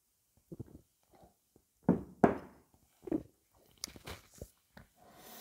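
A man gulping beer from a glass mug, three or four loud swallows. Then a few light knocks as the mug is set down on the table.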